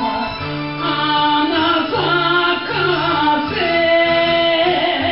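Japanese enka song playing: a drawn-out, wavering melody over steady band backing.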